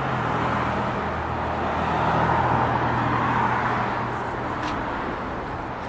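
Road traffic: the noise of a vehicle passing swells to a peak two to three seconds in and fades, over a steady low engine hum that stops about four seconds in.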